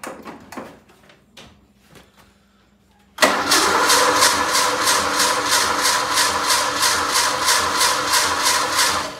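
Jeep CJ's engine being cranked over by its starter for about six seconds without catching: a loud, steady rhythm of about four pulses a second that stops suddenly. A few light clicks and knocks come before it.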